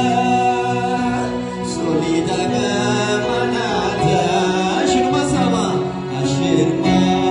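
A man singing a Kunama gospel song (mezmur) into a microphone, with a wavering melodic line. He is accompanied by an electronic keyboard holding long sustained chords.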